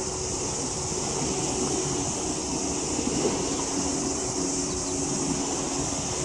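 Harbour waterfront ambience: wind on the microphone and water, under a steady high hiss, with a faint distant hum whose second, lower tone comes in about three seconds in.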